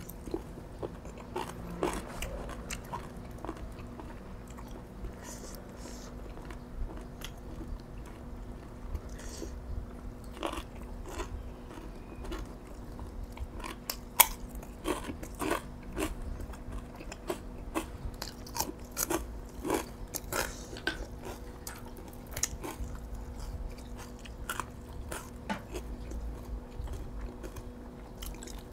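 Close-up eating sounds of boiled field snails and spicy long bean salad eaten by hand: chewing and crunching, with many sharp clicks throughout, the loudest about halfway through. A faint steady hum runs underneath.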